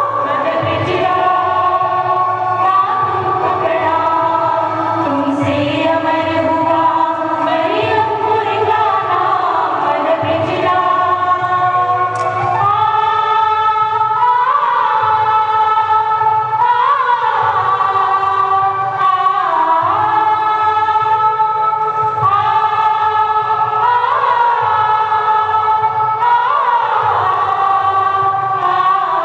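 A choir singing, with long held notes that slide between pitches.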